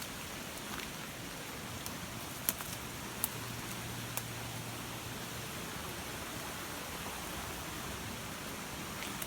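Steady rushing of a rain-swollen, flooded creek: a constant, even hiss of water, with a few sharp ticks near the middle.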